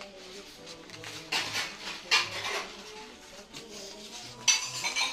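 Black foam wrapping paper rustling and crinkling as it is folded by hand, in three louder bursts: about a second and a half in, just after two seconds, and near the end.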